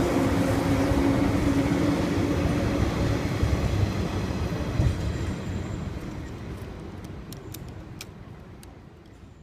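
583-series electric train pulling away, its rumbling running noise fading steadily as it recedes, with a few sharp clicks near the end.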